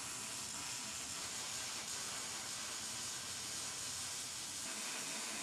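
Electric welding arc hissing steadily as steel bracing is welded.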